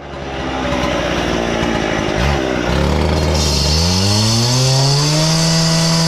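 A loud motor-driven machine running; about halfway through it speeds up, its pitch rising over a couple of seconds to a steady high drone, and a hiss joins in.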